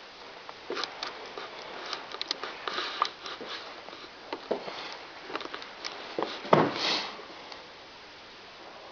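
Irregular clicks, taps and rustling in a small room, with the loudest rustle about six and a half seconds in.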